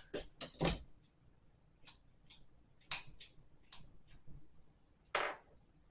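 Small objects being handled on a table: scattered light clicks and rustles, about seven in all, with a slightly longer rustle near the end.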